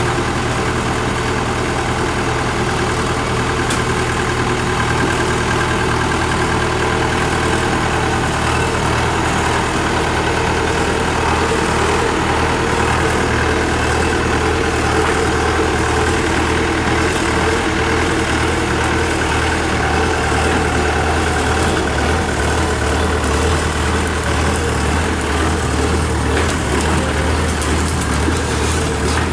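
Kubota DC-93 Extra rice combine harvester's diesel engine running at a steady speed as the tracked machine is driven slowly.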